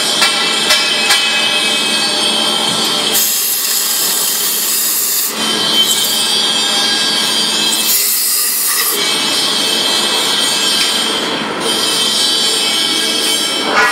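Steady mechanical noise from an automatic tube-loading system and CNC lathe running, with a few light clicks in the first second. Two loud bursts of hiss break through, one about three seconds in lasting some two seconds, and a shorter one about eight seconds in.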